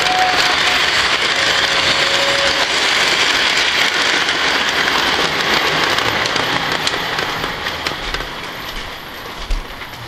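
O gauge Lionel model train rolling past on its track: a steady rush of wheel and motor noise that fades away over the last few seconds as the train moves off.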